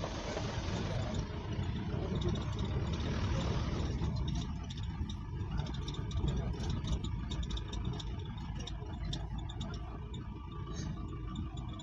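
Jeep driving over a rough track: a steady low engine rumble with frequent rattles and clatter.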